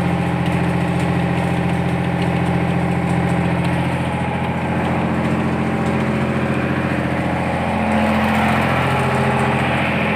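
Heavy machine's engine idling steadily, its note shifting a little partway through and rising slightly near the end.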